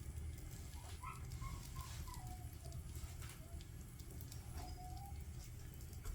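Firewood burning in a traditional agungi firebox: a steady low rumble of the fire with scattered crackles and pops. A faint whistling call sounds twice over it, about a second in and again about five seconds in.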